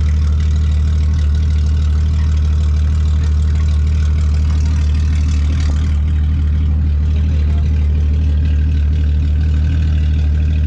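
Vehicle engine idling steadily with a constant low hum.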